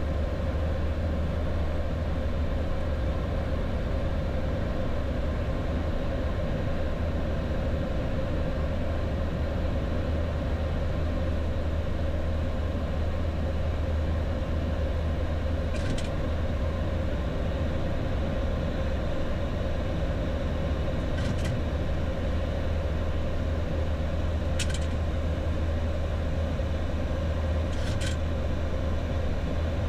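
Steady flight-deck noise of a Boeing 737-800 climbing after takeoff: a constant low hum with air rush and a steady mid tone, with a few faint brief clicks in the second half.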